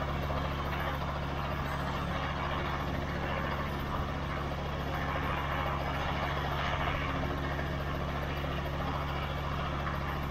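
Robinson R22 Beta helicopter running on the ground before take-off, its four-cylinder Lycoming piston engine and rotor turning at a steady, unchanging pace.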